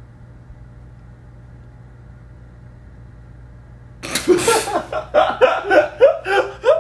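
Air conditioner humming faintly and steadily. About four seconds in, a man bursts out in loud laughter: a breathy gasp, then quick repeated laughs about three a second.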